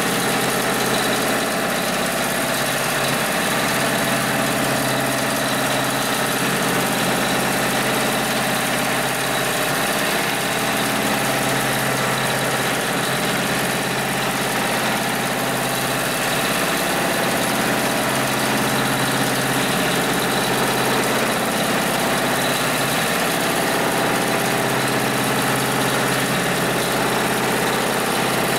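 HIGHTEX 72600PLK2 heavy-duty programmable pattern sewing machine running steadily at high speed, stitching through thick red polyester lifting-strap webbing. It makes a loud, even mechanical drone with a needle rhythm too fast to count.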